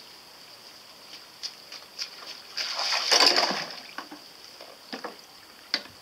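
Small homemade toy foil boat towed fast through the water on a string, its hull splashing and swishing, loudest about three seconds in, with a few short sharp splashes or knocks before and after.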